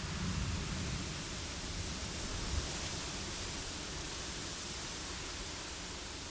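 Steady rain and wind: an even hiss over a low rumble, the rumble a little stronger in the first second.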